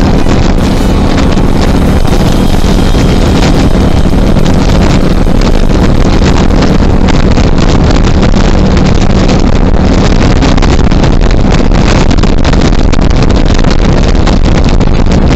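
Cruiser motorcycle cruising at highway speed: a steady engine hum buried under loud, constant wind noise on the microphone.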